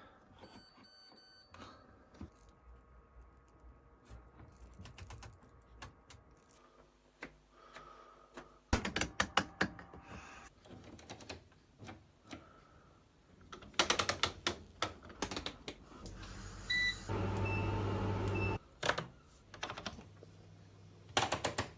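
Washing machine program selector dial clicking through its positions in quick runs, with a few short electronic beeps and a brief steady hum about seventeen seconds in.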